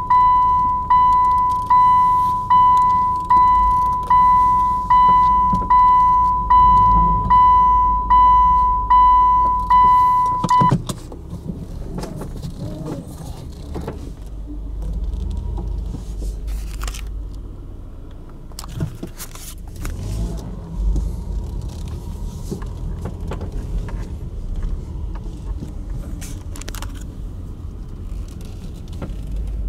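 An electronic warning beeper sounding one repeated tone, about four beeps every three seconds, which stops about ten seconds in. After it, a car runs quietly at low speed, with a few short clicks and knocks.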